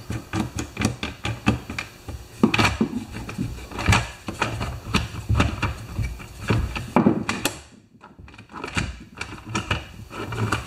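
Irregular clicks and knocks of a screwdriver working the cover screws on a Poulan 3816 chainsaw's plastic housing, and the top cover being worked loose and lifted. There is a short lull about eight seconds in.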